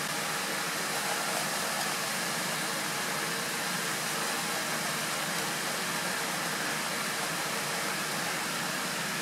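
Steady fizzing hiss of carbon dioxide bubbling out of a foaming copper sulfate and sodium carbonate mixture as basic copper(II) carbonate precipitates.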